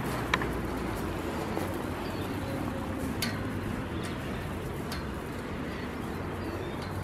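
Footsteps of a small group walking on gravel, with a couple of sharp clicks.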